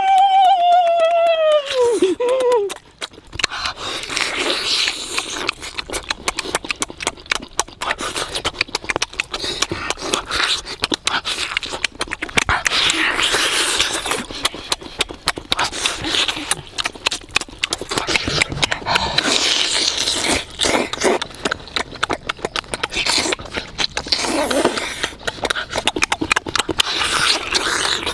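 Close-up, loud eating sounds of cooked turtle and its eggs eaten by hand: wet smacking, chewing and slurping in a dense run of clicks. It opens with a drawn-out vocal sound that rises and then falls in pitch over the first two seconds or so.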